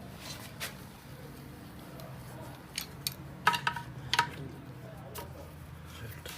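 A few sharp metallic clinks over a steady low hum, the clinks bunched together a little past the middle.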